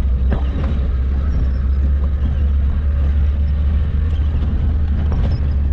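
Cabin noise of a vehicle driving over a rough, muddy off-road track: a steady low engine drone, with a few sharp knocks as it jolts over the bumps.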